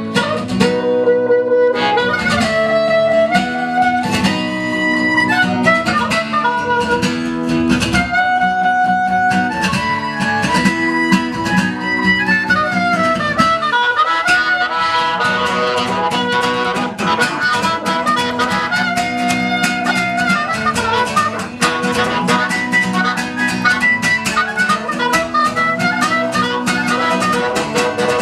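Instrumental passage of a live band's song with no singing: a melody of held notes over a steady chordal accompaniment.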